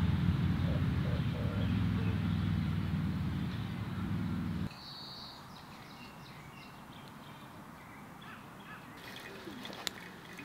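A loud, steady low hum that cuts off abruptly about four and a half seconds in. After it, quieter outdoor ambience follows, with short bird calls and a few sharp clicks near the end.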